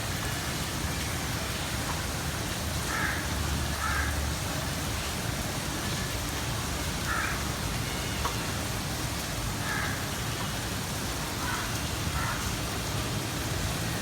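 Steady rain falling, as an even hiss, over a low rumble. About seven short calls, some in pairs, stand out above the rain through the middle of the stretch.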